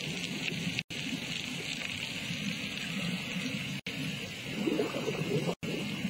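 Underwater bubbling and gurgling from an airlift suction pipe working in seabed silt and gravel, churning a little harder about five seconds in. The sound cuts out for an instant three times.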